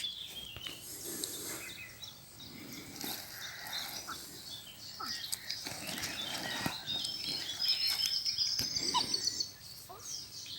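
Small birds singing outdoors, with a run of quick high chirps in the second half, over faint scattered rustling.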